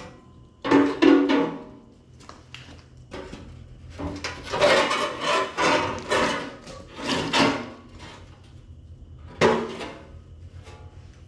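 Sheet-metal parts of an arc welder's case clanking and rattling as they are handled, in a few irregular bursts with a ringing tone, the busiest stretch in the middle.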